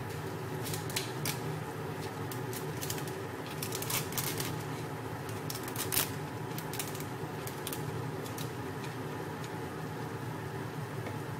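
Wooden spatula stirring and lifting pancit canton noodles in a wok, giving scattered scrapes and taps against the pan that stop after about seven seconds. A steady hum runs underneath.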